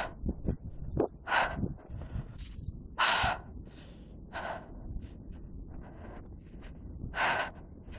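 A person breathing heavily close to the microphone, with about five noisy breaths one to two seconds apart, over a steady low rumble.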